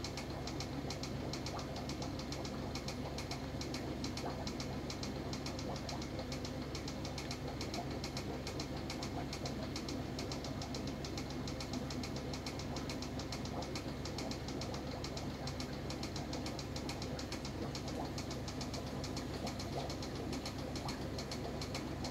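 Aquarium pump running: a steady low hum with a fast, even ticking over it.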